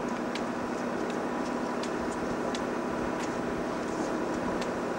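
A schooner's engine running steadily as the boat motors, a low even drone, with a few faint ticks over it.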